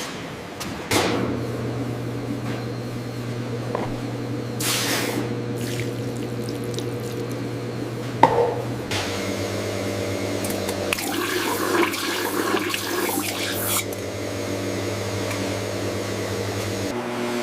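Liquid running and splashing over a steady machine hum in a milk-processing plant. The hum changes abruptly about a second in, again about nine seconds in and near the end, as one scene gives way to the next.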